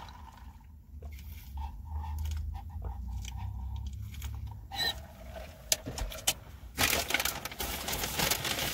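Soda sipped through a straw from a fast-food fountain cup, with crackly clicks from the plastic lid and ice. A burst of rustling comes near the end.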